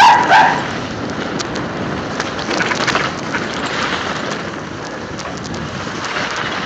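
Mountain bike rolling fast down an icy, rutted lane: a steady rush of wind on the microphone and tyre noise, with scattered small rattles and crunches. A brief high squeal sounds in the first half second.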